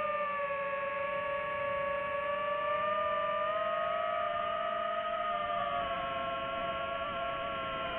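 DJI FPV drone's motors and propellers whining steadily, the pitch drifting up and down a little with throttle changes.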